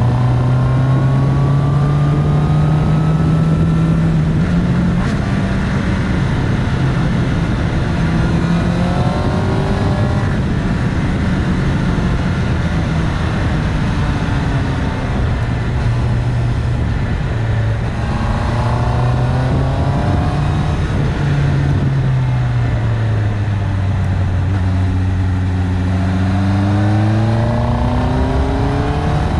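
A 2019 Honda CB650R's inline-four engine running through an Akrapovic titanium Racing Line exhaust, heard from the bike over wind rush. Its pitch rises and falls with the throttle, drops away about two-thirds of the way through, then climbs steeply near the end as the bike accelerates.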